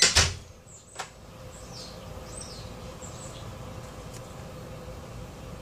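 A thump right at the start, then a sharp click about a second later, followed by faint short high chirps over a steady low hum.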